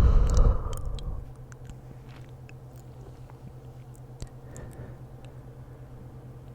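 A person's yawn trailing off in a breathy exhale over the first second, then soft, scattered mouth clicks and lip smacks close to the microphone.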